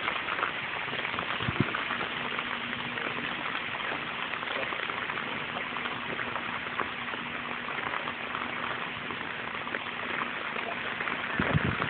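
Heavy rain falling on a flooded street: a steady hiss of many drops pattering into standing water.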